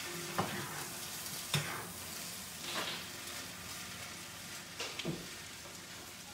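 Rice frying in a cast-iron skillet with a steady sizzle while a spatula stirs it, scraping and knocking against the pan about five times.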